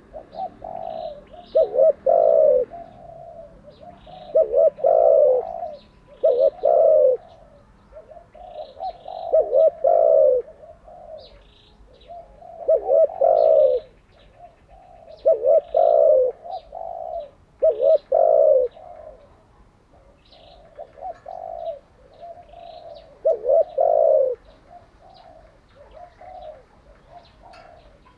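Spotted dove cooing: short low coo phrases of a few notes each, repeated every two to three seconds with quieter gaps between. Faint high chirps sound in the gaps.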